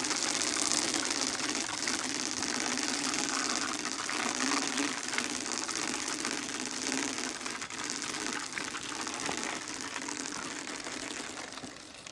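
Electric fence wire being run out from a reel: a steady whirring rattle that fades near the end.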